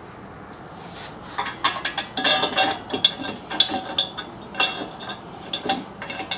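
Red steel tube frame of an engine stand being handled during assembly, its parts knocking together in a run of irregular, ringing metallic clinks and rattles that start about a second and a half in.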